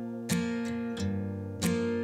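Background music: an acoustic guitar strummed, two chords ringing out and fading, with no singing.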